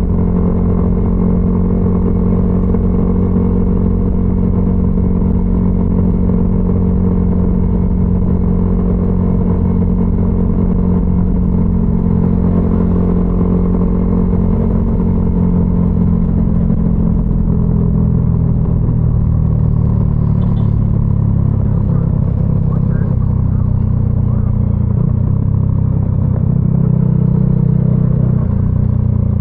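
Yamaha XSR155's single-cylinder engine running through a DIY aftermarket exhaust while the bike cruises. The pitch holds steady at first, then drops and wavers about two-thirds of the way in.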